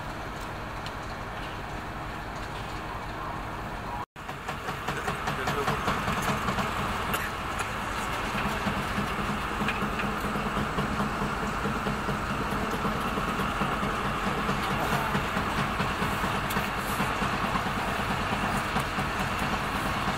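Diesel locomotive engine idling steadily beside the train. After a brief dropout about four seconds in, a louder train rumble with a fast flutter takes over.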